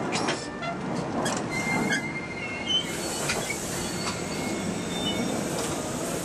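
Amtrak passenger cars rolling past, the wheels giving thin high squeals over a steady rumble, with scattered clicks and knocks from the wheels on the rails.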